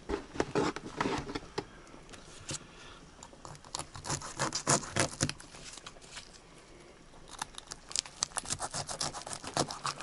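Irregular clicking and pattering in three bunches: near the start, around the middle and through the last couple of seconds.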